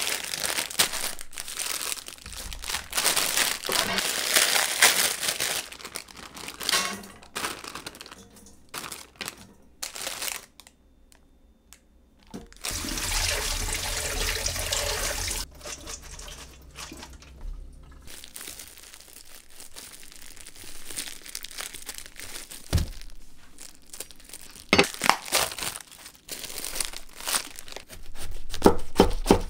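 Crinkling and rustling handling sounds at the start. Tap water runs for a few seconds onto bean sprouts in a stainless steel colander. Near the end, plastic cling wrap crinkles as it is peeled off a napa cabbage, then a kitchen knife crunches through the cabbage.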